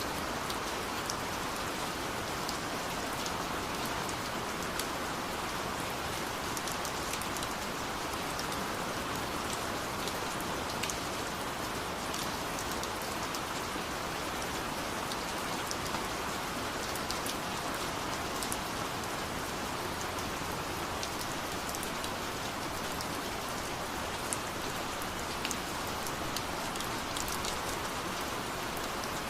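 Steady rain falling, a constant hiss with fine scattered drop ticks.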